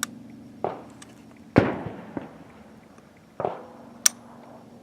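Gunshots from elsewhere on an outdoor range: several sharp reports, each with a short echoing tail, the loudest about a second and a half in. Near the end comes a single sharp metallic click, the AR-15's hammer falling as the trigger is pulled against a trigger-pull gauge.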